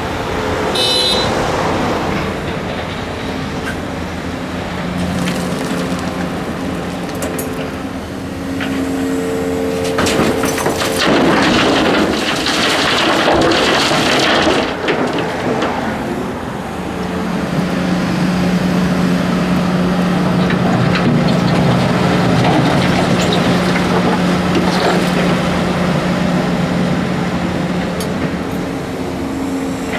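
Volvo EC480D excavator's six-cylinder diesel engine running under hydraulic load, its tone shifting as the boom and bucket work. There is a metallic clank about a second in, and a loud stretch of rattling and rumbling from the bucket's load of dirt and crushed concrete about ten seconds in.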